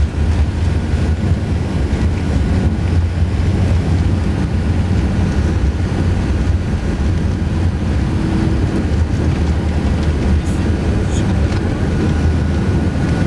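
Steady low rumble inside the cabin of a Qantas Airbus A380 taxiing on the ground: engine and cabin air noise with no sudden events.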